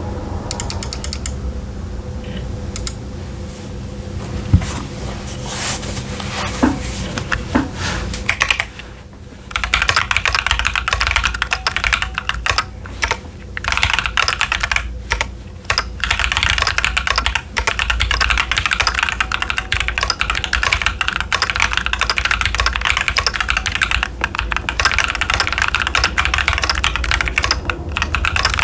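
Typing on a Keychron Q10 mechanical keyboard with TTC Chaotic Panda tactile switches and Cherry-profile PBT keycaps. At first there are only scattered key clicks. From about a third of the way in it becomes steady, fast typing with brief pauses.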